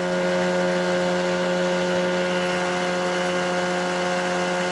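Boat outboard motor running steadily at planing speed, one even drone that holds its pitch.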